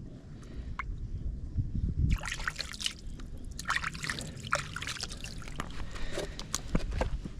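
Water trickling and sloshing, with irregular splashes and clicks starting about two seconds in.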